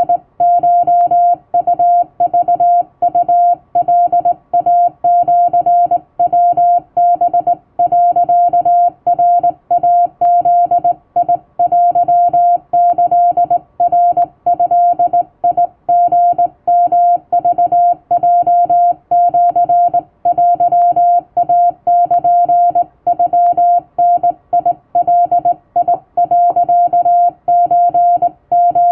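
Hand-keyed Japanese wabun Morse code: a single steady beep switched on and off in short dots and longer dashes, with slightly longer gaps between characters, at practice speed.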